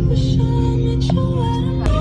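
Background music: held notes under a melody line, with one sharp click near the end.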